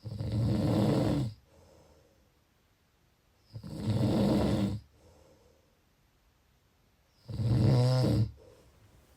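Snoring: three loud snores about three and a half seconds apart, each lasting just over a second, with a faint breath after each.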